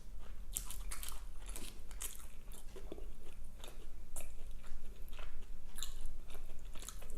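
Chewing and biting a breaded, fried mozzarella stick, with irregular crisp crunches.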